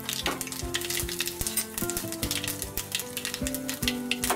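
Mustard seeds, urad dal and cumin crackling and sizzling in hot oil: a South Indian tempering, with many small rapid pops. Background music with held notes plays underneath.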